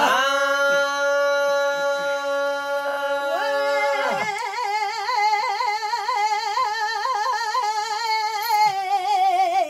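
A man singing long held notes in Telugu folk devotional style, without words. First comes a steady held note. About four seconds in, the voice slides up into a long wavering note with strong vibrato that sinks slightly near the end.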